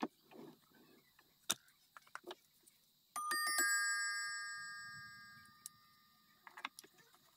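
The large bowl-shaped chime bells of a Seth Thomas Sonora mantel clock, still mounted in the case, are set ringing about three seconds in: several bells sound in quick succession as a bright chord that slowly dies away over about three seconds. Small clicks of handling come before and near the end.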